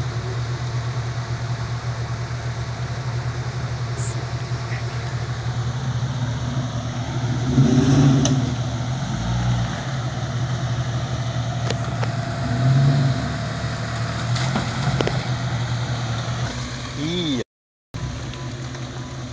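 Off-road Jeep engines idling steadily, swelling briefly twice, about 8 and 13 seconds in.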